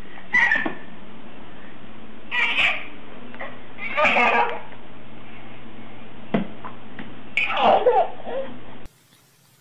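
A baby laughing and squealing in four short bursts over a steady background hum. The sound cuts off suddenly near the end.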